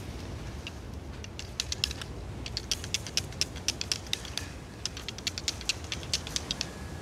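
Footsteps crunching through dry sand and brush: a quick, irregular run of sharp crisp clicks that starts about a second and a half in and stops near the end, over a steady low rumble.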